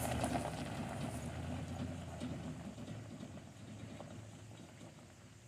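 Pickup truck's 5.7-litre gas V8 running with a low rumble that fades steadily away.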